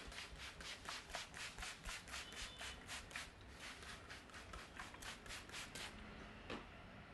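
Hands rubbing briskly over a person's hair and scalp in a head massage: a quick, even run of rubbing strokes, about four to five a second, that stops about six seconds in.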